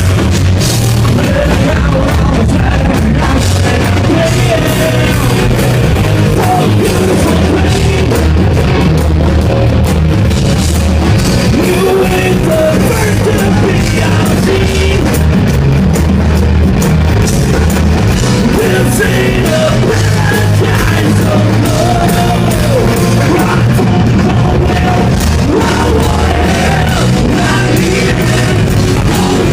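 Rock band playing live: loud distorted guitars, bass and drums with a male vocalist singing and yelling over them.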